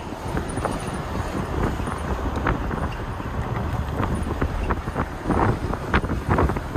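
Wind buffeting the microphone of a camera filming from a moving car, over the car's road rumble, with irregular small crackles and ticks.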